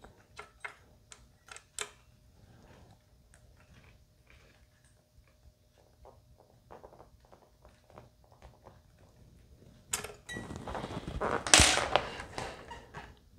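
Small clicks and taps of a tool and hands at the headstock of a Fender Stratocaster as the truss rod is given a slight turn. About ten seconds in comes a louder scraping, rustling handling noise lasting about three seconds.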